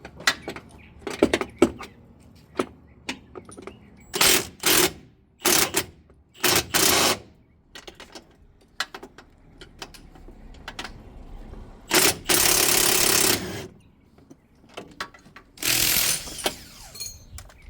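Impact wrench hammering in several short bursts, then a longer run of about a second and a half and one more near the end, loosening the 18 mm bolts of a Can-Am Maverick X3 rear sway bar bracket. Metal clicks and tool handling fill the gaps between bursts.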